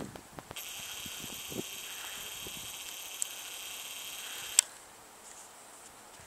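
Camcorder zoom motor running with a steady thin high whine for about four seconds, ending with a sharp click; a few faint handling clicks around it.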